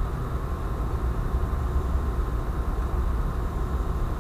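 Steady low drone of a ship's engine-room machinery, even and unbroken.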